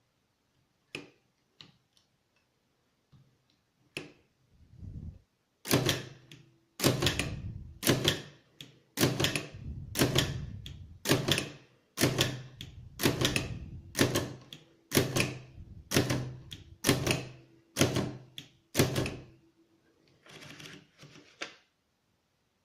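Hammond 12 typewriter typing slowly: a few light clicks, then about fifteen loud strokes, roughly one a second, each ringing on briefly, with a softer stretch of mechanism noise near the end.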